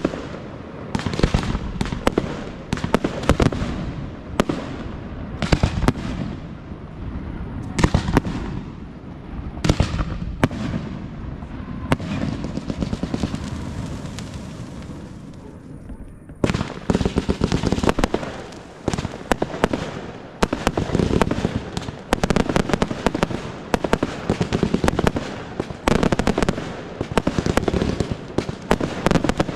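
Aerial fireworks display: shells and firework cakes bursting in rapid succession, sharp bangs one after another. A little before halfway the bangs thin out into a quieter, fading crackle, then a dense barrage starts abruptly and runs on with rapid bangs.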